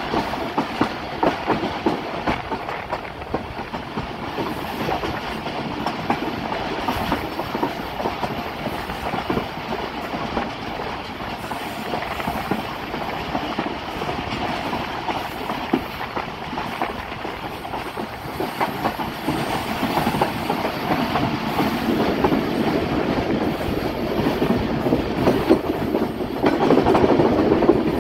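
Passenger train running on the rails, heard from an open carriage doorway, its wheels clattering steadily with a dense run of clicks. The clatter grows louder near the end.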